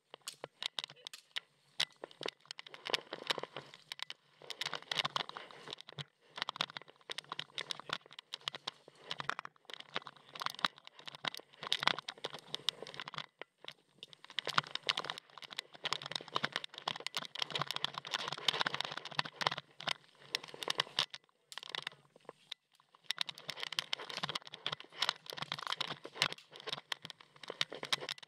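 Irregular crackling and crunching from a body-worn action camera as the wearer moves: footsteps on dry grass and dirt and gear rubbing against the camera. It comes in stretches of a few seconds, with short breaks.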